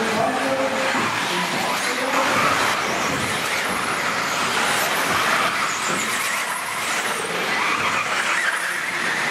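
Radio-controlled off-road buggies racing round a dirt track, their motors running steadily without a break.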